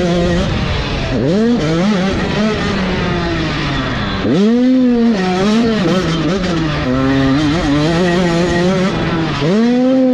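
Motocross dirt bike engine heard close up from the bike itself during a race, revving hard with the throttle: its pitch sweeps sharply up about a second in, again about four seconds in and near the end, and wavers up and down between.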